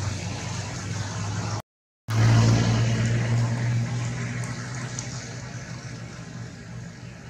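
A motor vehicle's engine running with a steady low hum. The sound cuts out completely for about half a second just before two seconds in, returns at its loudest, then slowly fades.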